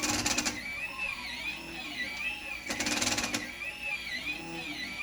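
Home-built 3D printer's stepper motors running a dry print: a whine that rises and falls in pitch again and again as the axes move, broken twice by a harsh rattling buzz, at the start and about three seconds in, as the motors skip steps.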